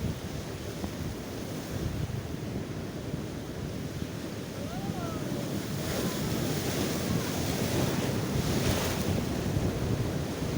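Atlantic surf breaking and washing on the shore, with wind buffeting the microphone; a wave breaks louder about six seconds in and washes through for a few seconds.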